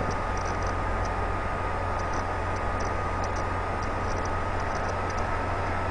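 Steady background noise: an even hiss with a low hum underneath and a faint, thin high whine, unchanging throughout.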